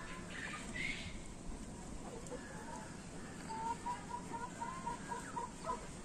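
Desi chickens clucking, with a run of quick clucks, about four a second, in the second half.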